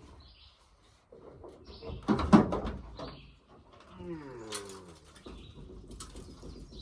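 Small bird chirping in short high phrases several times, over handling noise with a loud knock about two seconds in and a falling drawn-out sound around four seconds in.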